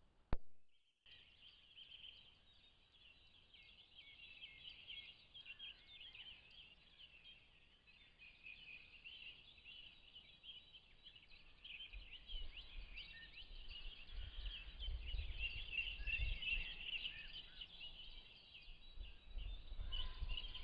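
A sharp click, then after about a second a dense chorus of many birds singing, with quick chirps and trills crowding over one another and growing louder. A low rumble comes in around the middle.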